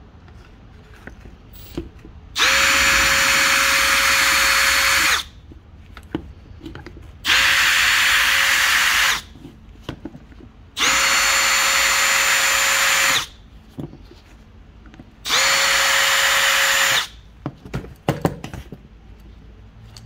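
Milwaukee M18 cordless drill drilling out the rivets of a Ford C4/C6 neutral safety switch. It runs in four bursts of about two to three seconds each at a steady speed, with small handling clicks between them.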